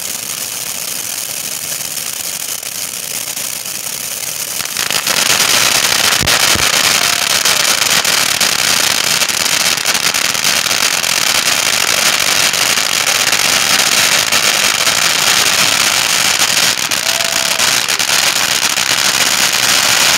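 Several ground firework fountains going off at once: a continuous hissing spray with dense crackling, which grows much louder about five seconds in and stays loud.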